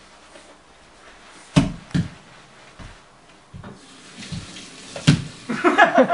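A toddler's bare feet thudding on a wooden floor as he gets down from a sofa and stamps about. There are a few separate thuds, the loudest two close together about a second and a half in and another about five seconds in. Near the end adults burst out laughing.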